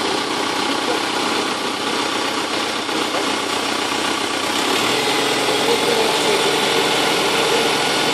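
Diesel tractor engine running steadily, hitched to a trailed grape harvester. It grows a little louder about five seconds in.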